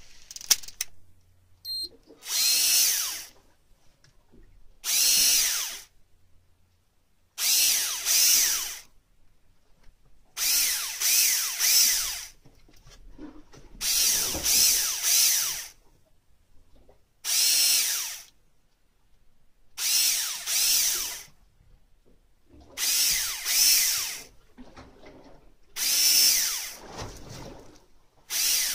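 Electric fishing reel's motor whirring in short bursts of about a second, often two or three close together, repeating every two to three seconds, each burst rising and falling in pitch as the motor spins up and stops: the reel jerking the line to jig for squid. A couple of sharp clicks come before the first burst.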